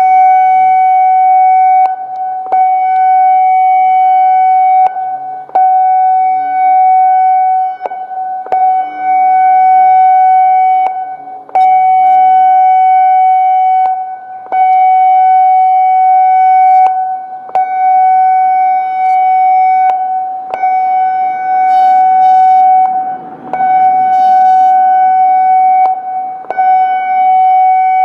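Federal Signal Modulator 6024 electronic siren sounding a steady, loud warning tone on one pitch, its level dipping briefly every one to three seconds.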